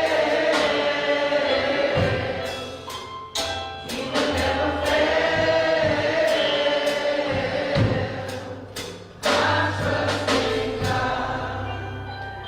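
Gospel music: a choir singing long held chords over a band with low bass notes and drum hits, fading down near the end.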